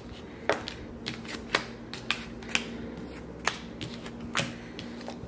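A deck of reading cards being handled, with a string of sharp clicks and snaps about every half second to second, over a faint steady hum.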